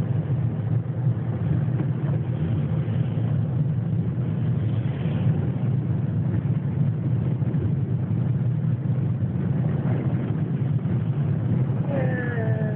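Steady low rumble of a car's engine and tyres heard inside the moving car. Near the end a short pitched sound slides downward.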